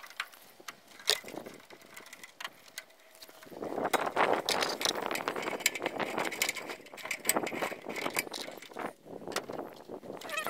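Clicks and scrapes of hand tools on stiff wire in a metal breaker panel: wire strippers on a conductor, then a screwdriver working a wire at the terminal bar. From about three and a half seconds in, a denser run of scraping and clicking.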